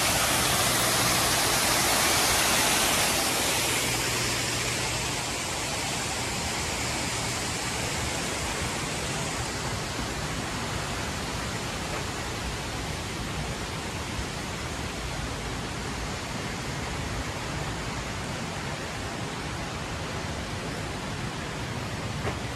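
Artificial rock waterfall splashing into its pool with a steady, even rush of water. It is loudest for the first few seconds, then drops to a quieter steady rush.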